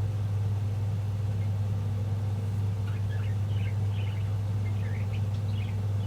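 A steady low hum, with a few short budgie chirps starting about three seconds in.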